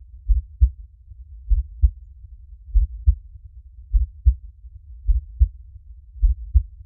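A slow, steady heartbeat: deep paired thumps (lub-dub), about one pair every 1.2 seconds.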